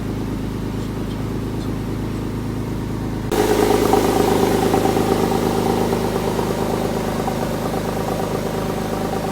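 Porsche 911 (997) flat-six engine idling steadily while an engine flush circulates. About three seconds in it suddenly gets louder and brighter, then eases down slightly.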